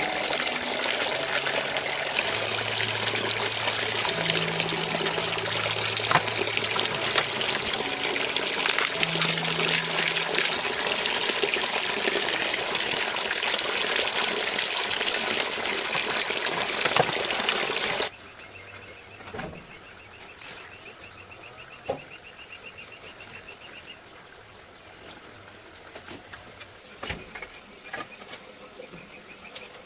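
Water pouring steadily with soft background music, cutting off abruptly about eighteen seconds in to a quiet outdoor background with a faint pulsing insect buzz and scattered clicks.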